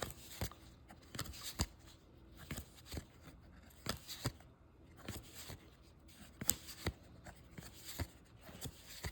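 Baseball trading cards being handled and flipped through by hand: a faint string of irregular card snaps and slides, about two a second.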